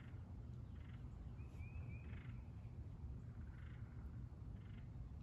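Faint short animal calls repeating every second or so, with a couple of brief rising chirps about one and a half to two seconds in, over a low steady rumble.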